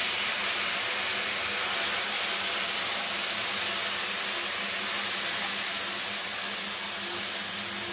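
Tamarind water poured into hot oil in a kadai, hissing and sizzling loudly as the water hits the oil. A steady hiss that eases only slightly.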